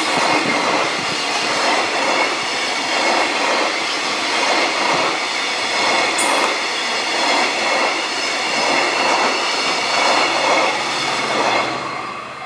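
Loaded container flatcars of a freight train rolling past at speed: a steady rumble of steel wheels on rail with a repeating clatter over the rail joints. There is a brief high wheel squeal about six seconds in, and the sound falls away near the end as the last wagons pass.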